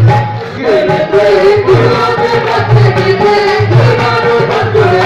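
Devotional song: a voice sings a wavering, ornamented melody over low instrumental accompaniment.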